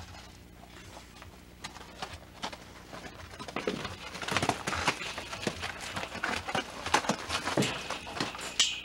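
Unbroken draft horse's hooves thudding and scuffing in corral dirt as it moves about, a run of uneven knocks that gets busier and louder about halfway through.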